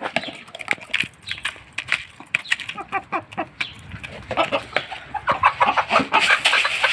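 Several domestic hens clucking around a feed bowl of grain, a steady run of short calls that grows busier and louder over the last few seconds.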